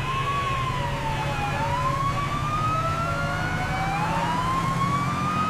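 A wailing emergency-vehicle siren, its pitch sliding slowly up and down, over a steady low engine rumble.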